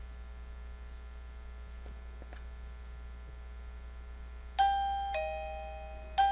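Rebluum wireless doorbell's chime playing a two-note ding-dong, a higher note dropping to a lower one, about four and a half seconds in, then starting a second ding right at the end. A faint steady low hum runs beneath it.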